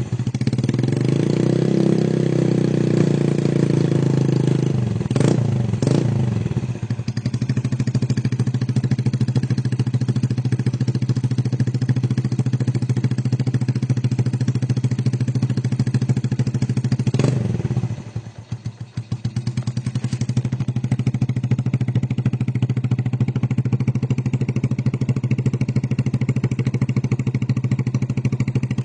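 Yamaha Vega ZR's single-cylinder four-stroke engine revved through its exhaust, with a couple of quick throttle blips, then settling to a steady idle. Near two-thirds through there is one more blip, and the idle briefly sags and picks up again.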